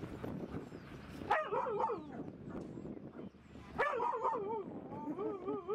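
Siberian husky making warbling, whining calls: a short wavering call about a second in, another near four seconds, and a longer wobbling whine near the end.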